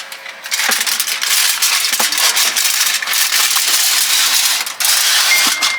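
Bacon-wrapped dove poppers sizzling and crackling in an air fryer: a dense hiss full of fine pops.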